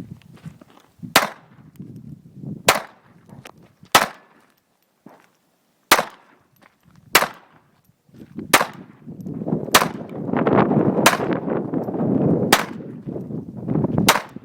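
Sig Sauer Mosquito .22 semi-automatic pistol fired shot by shot: ten sharp cracks, about one every one and a half seconds. From about halfway through, a steady rushing noise lies underneath the shots.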